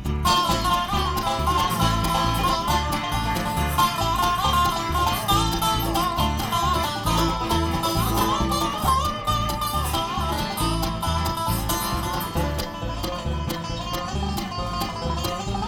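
Live bluegrass band playing an instrumental break between verses: quick plucked-string picking over a steady, evenly pulsing bass beat.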